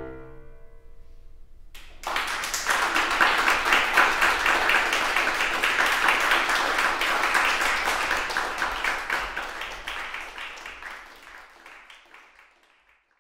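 The last chord of a Steinway grand piano dies away. About two seconds in, an audience breaks into applause, which fades out near the end.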